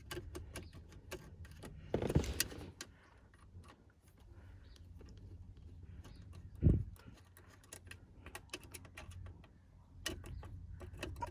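Scattered small clicks and taps of plastic trim covers being pried and handled on a car steering wheel to expose the airbag screws, with a dull knock about two seconds in and a louder low thump near the middle.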